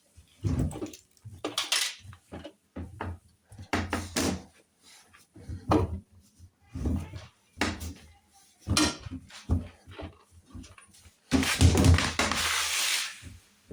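Hoover washing machine at the start of a cycle: a string of irregular clunks and knocks, then a rushing hiss about eleven seconds in that lasts under two seconds and cuts off.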